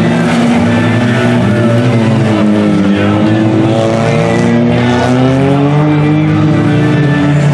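Engines of several demolition derby cars running and revving at once, their pitches rising and falling as the cars manoeuvre around the dirt arena.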